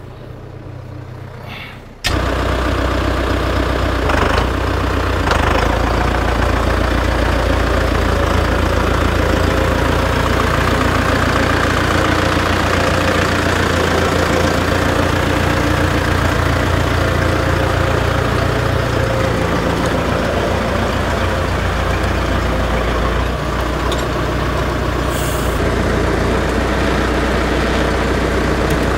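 Farm tractor's diesel engine running steadily, coming in abruptly about two seconds in and holding a steady low drone.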